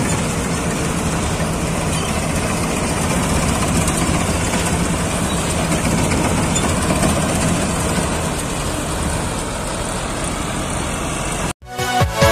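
Dashmesh 912 combine harvester's engine and machinery running steadily, a continuous drone. Near the end it cuts off abruptly and electronic music with sweeping tones starts.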